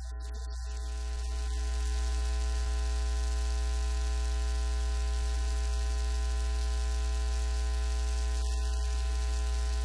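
Steady electrical hum and buzz, a low drone with a stack of even overtones and a hiss over it. It swells over the first two seconds, then holds steady.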